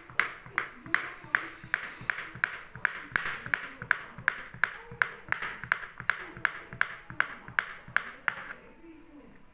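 Kitchen knife chopping clear glycerin soap base into small cubes, each stroke ending in a sharp tap of the blade on a plastic cutting board, about three taps a second. The chopping stops near the end.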